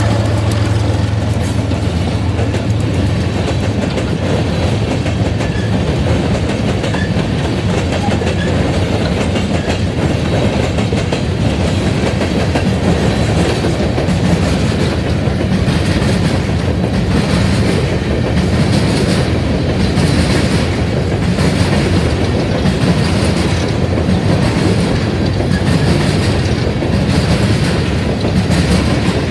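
Empty coal train's open-top coal cars rolling past, steel wheels clacking over rail joints with a steady rumble. A diesel locomotive's engine is heard briefly right at the start as the last unit goes by.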